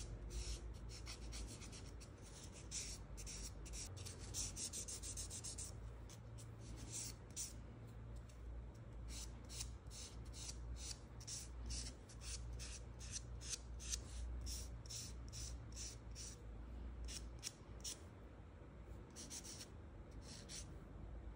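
A nail file rasping across a fingernail in short back-and-forth strokes, a few a second, sometimes in quicker runs.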